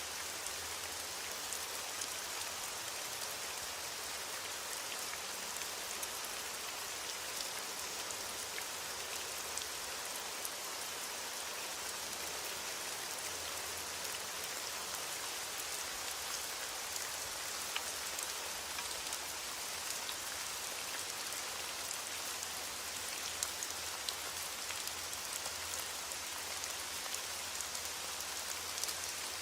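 Steady rain falling, an even hiss dotted with the ticks of single drops landing close by. No thunder is heard.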